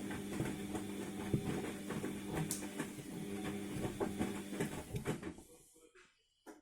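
Washing machine drum turning during a wash cycle: a steady motor hum with scattered knocks and clicks from the load, fading out as the drum winds down and stops about five to six seconds in, followed by a short click near the end.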